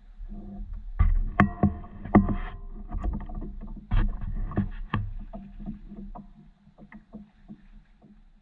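Irregular knocks and thumps on a fishing paddleboard as the angler shifts her footing and works her rod, loudest over the first few seconds and thinning to light taps near the end.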